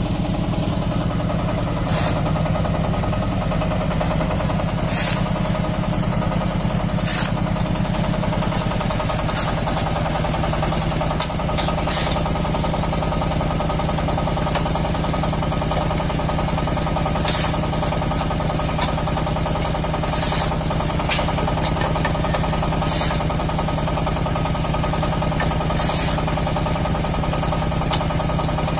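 Single-cylinder diesel engine of a QT4-30 hydraulic block machine running steadily, its low note dropping slightly about eight seconds in. Over it come short, high, hissing or scraping strokes every two to three seconds.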